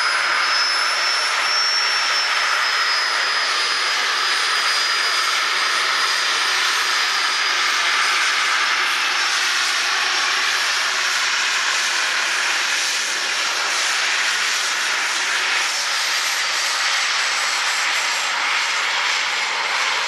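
Temco Super Pinto jet trainer's turbojet running steadily at taxi power: a continuous jet rush with a high-pitched whine that wavers slightly in the first few seconds.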